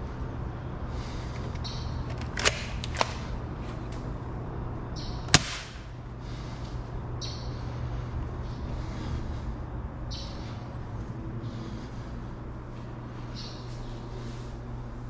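Bug-A-Salt 3.0 salt gun: two sharp clicks about half a second apart, then a louder snap of the gun firing a couple of seconds later, over a steady low hum.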